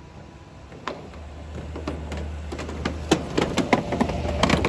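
Pickup truck driving across a bridge's wooden plank deck as it approaches and passes: the loose boards knock and clatter under the tyres over a low engine rumble. The clatter grows louder and denser through the second half as the truck draws alongside.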